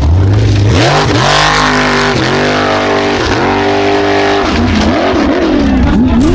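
Loud racing engine revving hard several times, its pitch climbing and falling back, with quicker short blips near the end.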